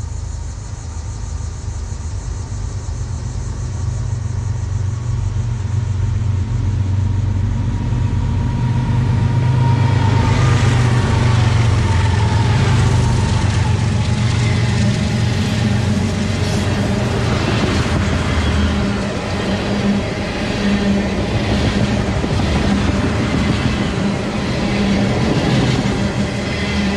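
Diesel-led freight train passing: the locomotives' low engine drone grows louder over the first ten seconds, then the ethanol tank cars roll by with steady clickety-clack of wheels over the rail joints as the engine sound fades.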